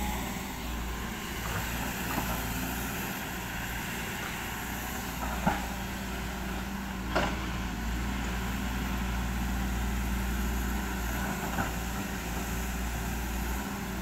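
SANY SY215C hydraulic excavator's diesel engine running steadily under load as it digs wet mud, with a few short knocks, the loudest about seven seconds in.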